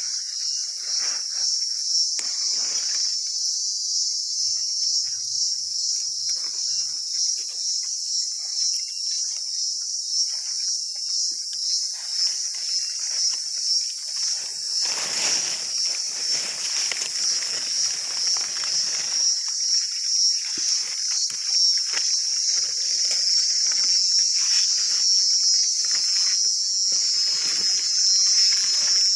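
Insects chirring steadily in a loud, high-pitched chorus. Leaves and vine stems rustle as they are handled and brushed through, most heavily about halfway through.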